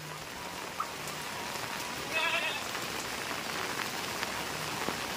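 Steady rain falling on roof tiles and wet ground, an even hiss. About two seconds in, a short animal bleat rises over it.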